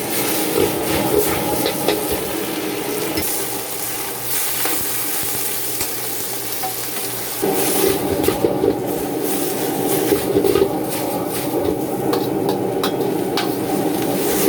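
Food sizzling in a wok while it is stirred and tossed, with frequent short clicks of a metal ladle against the pan over a steady frying hiss.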